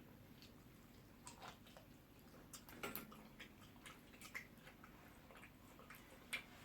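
Near silence broken by faint, scattered clicks and smacks of people eating ogbono soup with pounded yam.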